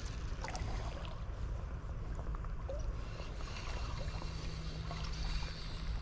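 Creek water sloshing and trickling around a wader's legs, a steady low rumble, with a few faint clicks from handling a spinning reel.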